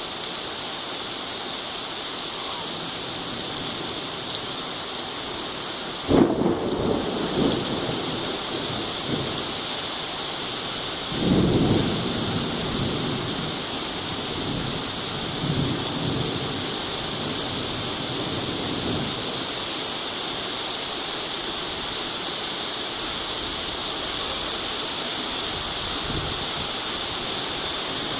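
Steady rain falling, with a sudden clap of thunder about six seconds in that rolls on for a few seconds. A second rumble of thunder comes about eleven seconds in, and fainter rumbles follow a few seconds later.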